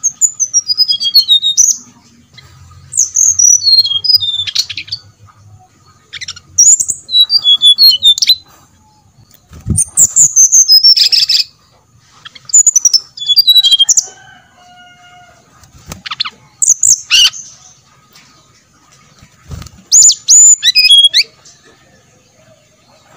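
Brown-chested jungle flycatcher singing: about seven short phrases of quick, high, warbled whistles that fall in pitch, each lasting a second or two, with brief pauses between them.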